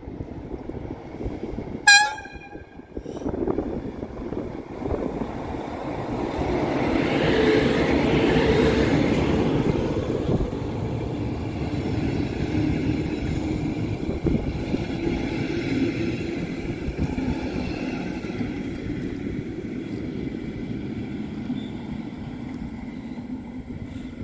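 An approaching DB Class 111 electric locomotive gives one short, sharp horn toot about two seconds in. It then rolls past close by with its train of double-deck coaches: the noise swells as the locomotive goes by, then settles into a steady rumble of wheels on rails as the coaches follow.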